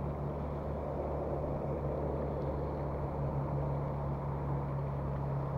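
A steady low mechanical hum that holds a constant pitch without rising or falling.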